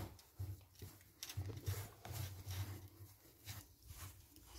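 Hands kneading soft shortbread dough in a glass bowl: faint, irregular squishing and dull knocks as the dough is pressed and gathered.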